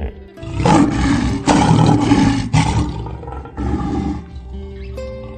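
A tiger roaring: one long, loud roar lasting about two and a half seconds, then a shorter one about a second later, over background music with steady tones.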